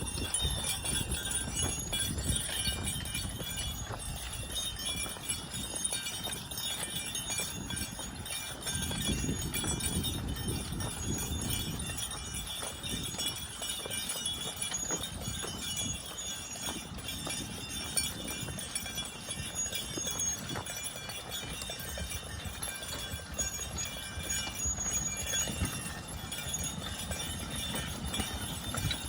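Belgian draft horses pulling a plough, their hooves thudding in a run of plodding footfalls.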